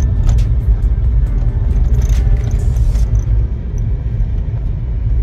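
Inside a moving car's cabin: a steady low rumble of engine and road noise, with a scatter of sharp clicks or taps in the first three seconds.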